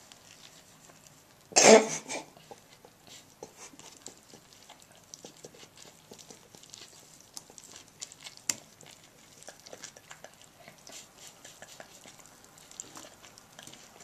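A man coughs once, loudly and briefly, about a second and a half in. After that come soft, scattered small clicks and mouth sounds of eating.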